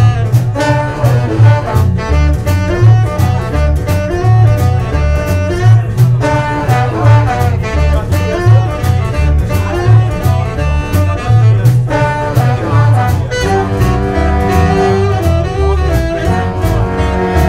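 Live jump-blues band playing a boogie: an upright double bass walks a line of low notes under saxophones, over a steady beat. About thirteen seconds in, the band moves to long held notes.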